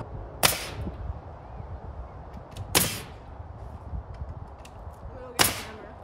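Pneumatic nail gun firing three times into wooden door trim, each shot a sharp crack with a brief hiss of exhaust air, spaced a couple of seconds apart.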